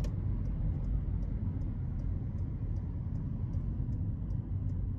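Steady low road and engine rumble inside a moving car, with a faint, even ticking of about two or three ticks a second from the car's turn indicator.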